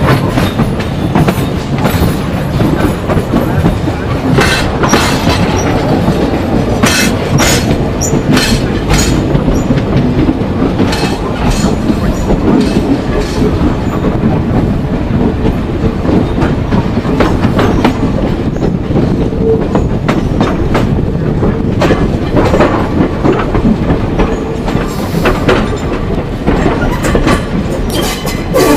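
Train of wagons behind a steam locomotive rolling along the track: a steady rumble of wheels on rail, broken by many irregular knocks and clicks.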